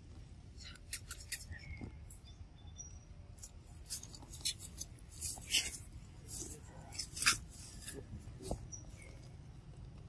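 Irregular close-up clicks and crackles from a macaque feeding and shifting about on dry leaf litter, the sharpest about seven seconds in, with a few faint short chirps.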